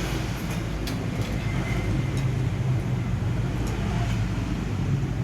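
A steady low drone, like a motor running in the background, with a few faint clicks of eating utensils against a dish.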